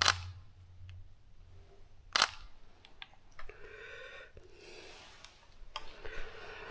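Two sharp camera shutter clicks, about two seconds apart, with fainter ticks and soft rustling between and after them.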